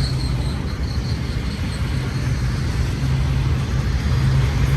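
Long intermodal freight train's cars rolling past, a steady rumble of steel wheels on rail.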